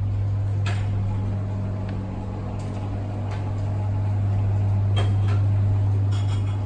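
A steady low electrical hum, the loudest thing throughout, with a few faint clinks of tableware over it.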